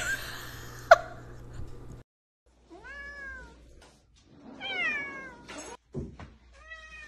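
Tabby cat meowing three times, each meow a long call that rises and then falls, about two seconds apart. There is a short knock just before the third meow.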